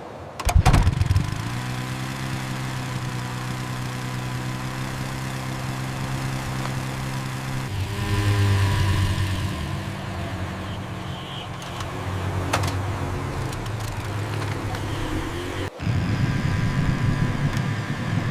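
Small motor scooter engine running steadily as a sound effect, its pitch and loudness shifting at a few cuts, with a couple of sharp clicks.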